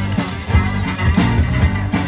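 Live funk band playing: a bass guitar line of short repeated low notes over the drum kit, with acoustic and electric guitars.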